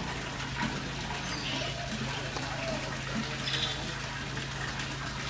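Water running steadily, with a low steady hum beneath it.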